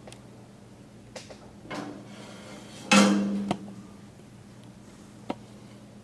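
A few light knocks and one loud clattering bang about three seconds in that rings briefly, over a faint steady hum.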